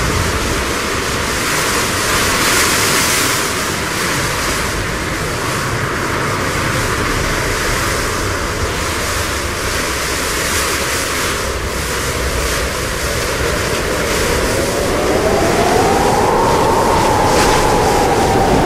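Storm-at-sea ambience: a steady rush of surf and wind, with a howling gust rising in pitch and then slowly falling over the last few seconds.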